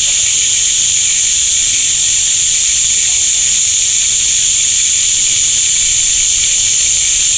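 Steady, unbroken high-pitched insect chorus, a shrill drone without pauses.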